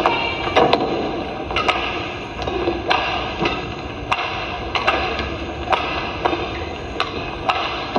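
Badminton rally: rackets strike the shuttlecock in a string of sharp cracks, roughly one a second, as the two players trade shots, over steady background noise.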